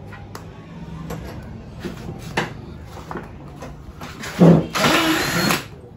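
A few scattered knocks and clatters, then a cordless drill runs in one burst of a little over a second, about four and a half seconds in.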